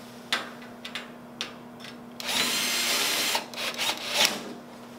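Cordless drill-driver running for about a second, driving a T30 screw into a steel enclosure frame to fasten a hinge. Sharp metal clicks and knocks come before it and a cluster of knocks follows, as the parts and tool are handled.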